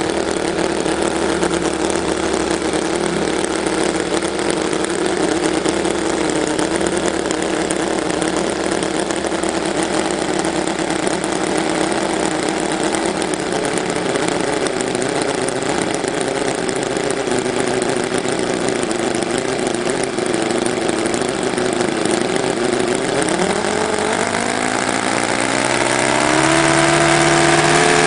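TechnoPower 9C one-fifth-scale nine-cylinder four-stroke radial engine, glow-plug ignited and burning methanol-nitromethane fuel, running on a test stand and turning a propeller. It holds a steady speed, then in the last few seconds speeds up, rising in pitch and getting louder.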